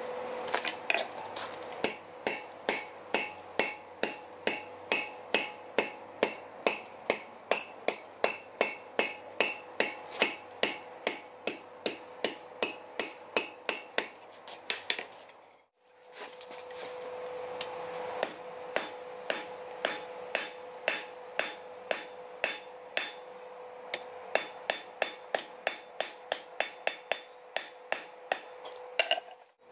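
Hand hammer striking steel on an anvil in steady forging blows, about two to three a second, each with a metallic ring, over a steady hum. The hammering stops briefly about halfway through, then carries on.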